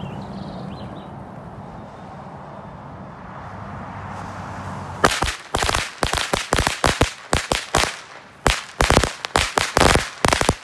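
A 50-pack string of Bunker Bombs firecrackers going off. After a few seconds of low background noise, a rapid, irregular run of loud bangs begins about halfway through, several a second, and keeps going.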